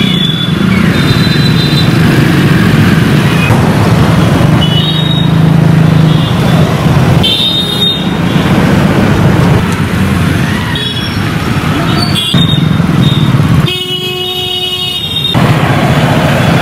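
Road traffic: car and motorcycle engines running past, with short horn toots several times and a longer horn near the end.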